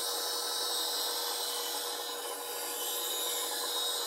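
Bench grinder wheel grinding the bevel of a spindle gouge held in a sharpening jig: a steady grinding hiss over the grinder motor's steady hum, as one wing of the gouge is sharpened.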